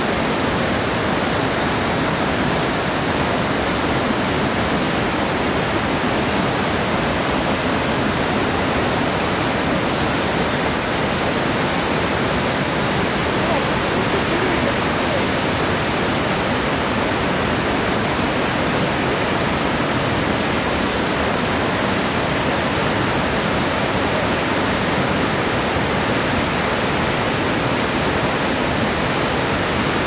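Steady, unbroken rush of falling water from Hirayu Falls, a tall plunge waterfall, mixed with the rocky stream below it.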